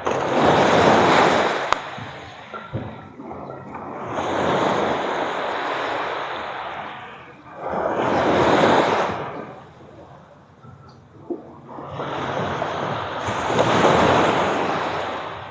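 Sea waves washing up on a beach, the rushing surf swelling and fading four times, about every four seconds.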